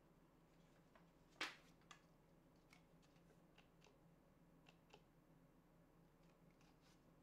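Near silence with a low hum, broken by a soft knock about a second and a half in and a few small clicks after it: an LED light tube being handled and set down on a tabletop.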